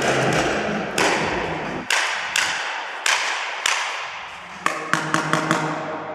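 Paintball markers firing: single sharp shots about a second apart, then a quick burst of about six near the end, each echoing in a large hall. A dense wash of noise fills the first two seconds.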